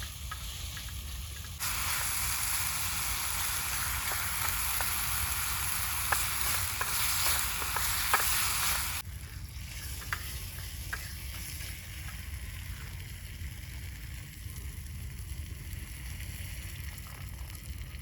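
Food frying in hot oil in a pan: a loud sizzle with scattered pops that starts suddenly about two seconds in and cuts off abruptly about halfway through, leaving a fainter crackle over a low steady rumble.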